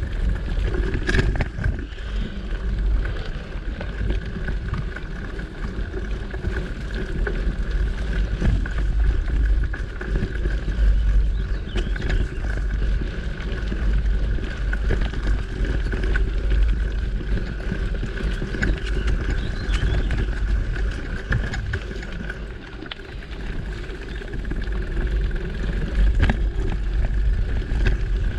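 Mountain bike riding along a dirt trail: a steady low rumble of wind and tyre noise on the microphone, with frequent knocks and rattles from the bike over bumps, a couple of them louder, about a second in and near the end.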